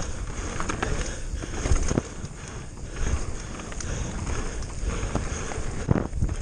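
Mountain bike descending fast on a gravel trail: steady tyre rumble over loose stones, with the bike rattling and knocking over bumps. A heavier knock near the end as it rolls onto rocky stone slabs.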